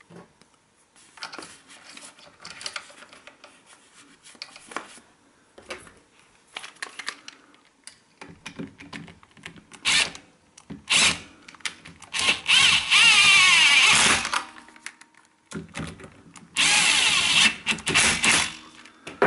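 Cordless drill with a socket running down the ignition coil's two mounting bolts, in several short bursts and two longer runs of about two seconds each, the motor's pitch shifting as the bolts seat. The bolts are being tightened with the coil held against a paper spacer on the flywheel magnet to set the air gap. Light handling clicks come before the drill starts.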